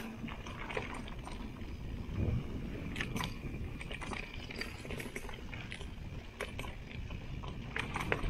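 Mountain bike rolling down a rough trail: a steady rumble of tyres and wind on the microphone, with irregular clicks and rattles of the bike over stones and roots.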